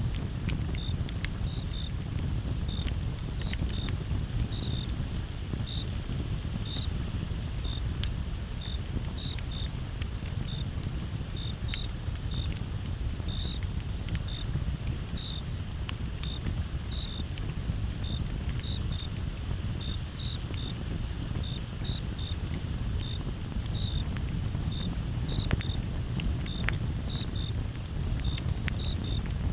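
Campfire crackling with frequent sharp pops over the low steady rumble of the flames. A chorus of crickets chirps with it: a continuous high trill, plus short chirps, often in pairs, a couple of times a second.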